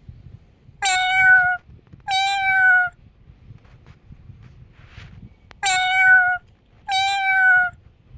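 Cat meowing: four loud, high-pitched meows in two pairs, each meow under a second long, the second pair about five seconds after the first.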